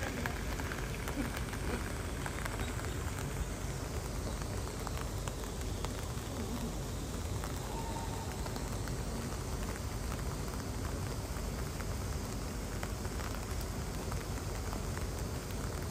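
Steady patter of rain falling on surfaces, with many faint scattered ticks.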